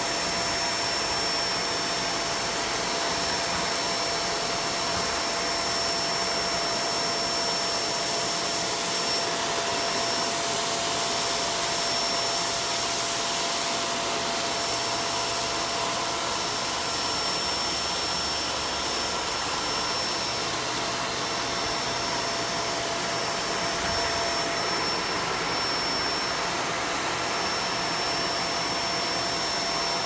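Stick vacuum cleaner running steadily as it sucks cat litter granules off a wood floor: an even rush of air with a steady high whine from the motor.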